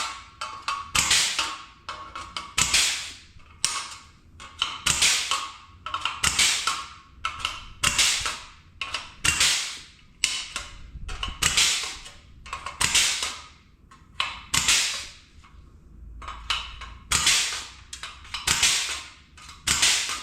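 Flange-and-punch tool punching holes through the sheet-steel patch panel for plug welds, a sharp snap of the punch about once a second, over and over.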